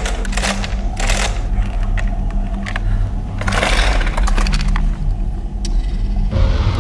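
Chainsaw starter cord being yanked several times, each pull a short rasping rip, over a steady low hum.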